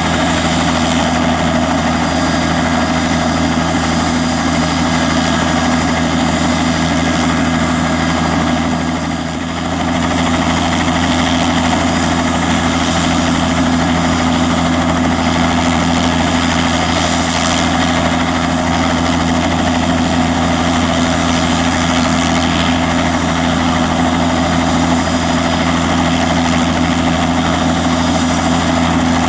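Bell 206B-3 JetRanger III helicopter running steadily: its Allison 250 turboshaft gives a constant high whine over the low, even sound of the rotor. The loudness dips briefly about nine seconds in, then returns to the same steady level.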